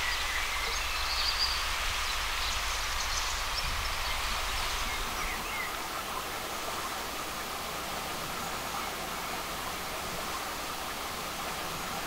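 Water running down a series of low stone steps in a small channel: a steady rushing, with a few short bird chirps over it. About halfway through it drops to a softer, even outdoor hiss.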